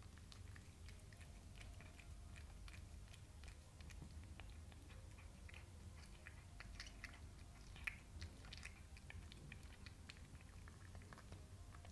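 A cat chewing small pieces of raw chicken: a run of faint, irregular wet clicks and smacks, with one louder click about eight seconds in.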